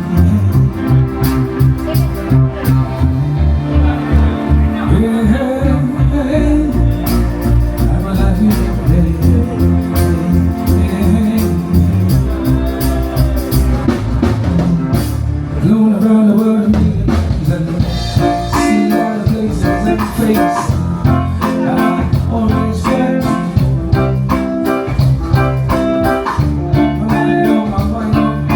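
Amplified band music with guitar, bass and drums and a singing voice, played continuously through a sound system at a sound check.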